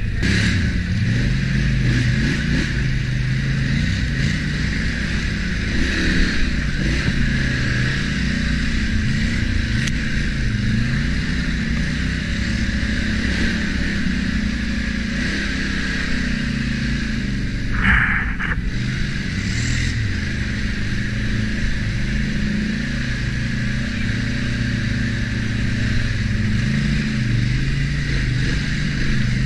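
ATV engine running with its pitch rising and falling as the throttle is worked. A brief, higher sound cuts in once about two-thirds of the way through.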